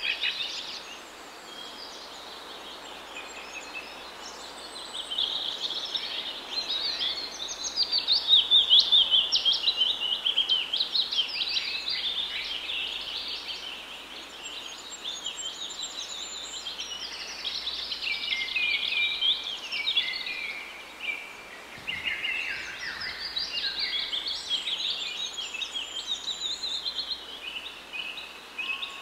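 Small birds chirping and twittering in quick runs of notes, one song overlapping another, loudest about a third of the way in.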